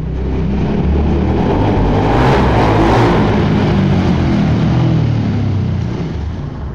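Formula SAE race car's KTM motorcycle engine revving hard as the car accelerates. It is loudest about two to three seconds in, then the pitch drops and the sound eases slightly toward the end.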